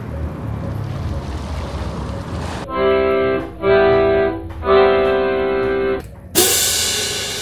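Three held organ-like keyboard notes with short gaps between them, then a loud whoosh that fades away. Before the notes there is a steady noisy hiss with a low rumble.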